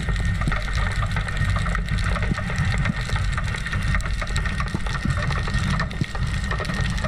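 Underwater sound picked up by an action camera's housing while spearfishing: a steady low rumble of moving water with dense crackling and small clicks, and a faint steady high whine.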